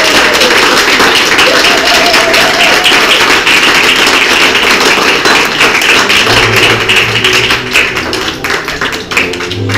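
Guests applauding and cheering, with a short whoop about two seconds in. About six seconds in, music with a steady bass line begins under the clapping.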